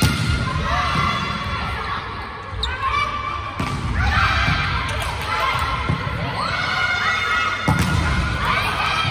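Indoor volleyball rally: the ball is struck hard three times, about four seconds apart (a spike, a dig, a spike), with players calling and shouting in between.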